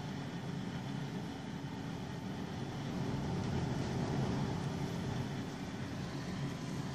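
Strong wind blowing steadily. It swells in a gust from about three seconds in and eases off again.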